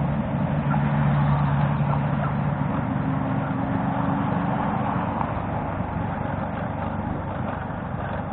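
Motorcycle engine running steadily at cruise, with wind and road noise rushing over the action camera.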